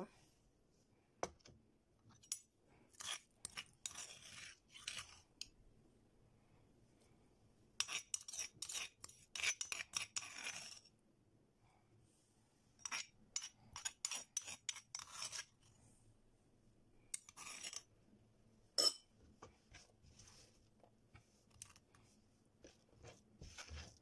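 Pestle pounding ginger in a mortar: bursts of quick knocks and scraping with short pauses between, and one sharp knock louder than the rest about three-quarters of the way through.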